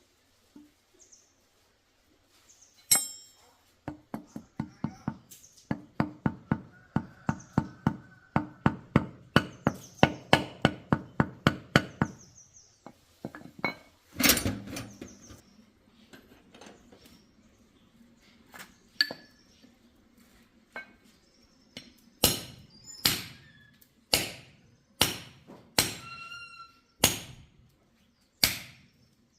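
Hammer blows on metal: a quick run of light taps, about three or four a second, then one heavy thud, and near the end a string of harder, ringing strikes spaced well apart.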